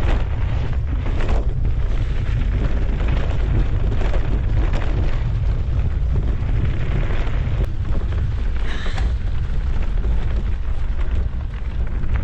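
Heavy wind buffeting and low rumble on a mountain-bike rider's camera microphone while riding a trail.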